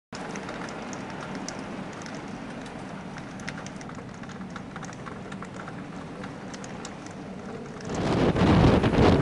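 Stormy seaside: a steady hiss with many small ticks, then about eight seconds in a loud, gusty rush of storm wind buffeting the microphone together with breaking surf.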